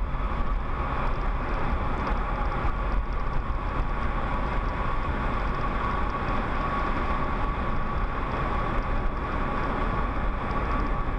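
Road noise inside a car cabin at freeway speed: a steady low rumble of tyres and wind, with a faint steady high hum.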